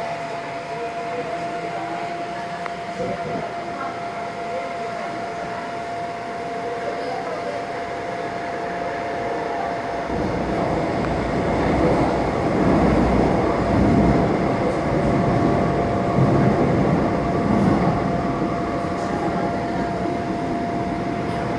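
Seoul Subway Line 9 train heard from inside the passenger car as it pulls out of the station and runs into the tunnel. A steady high tone runs throughout, and the rumble of wheels on rails grows louder from about ten seconds in as the train gains speed.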